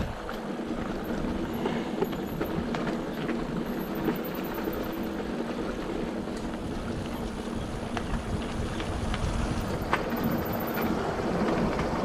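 Electric mountain bike rolling along a rough dirt trail: a steady wash of tyre noise with scattered clicks and knocks from the bike rattling over the ground, a low steady hum underneath, and some wind on the microphone.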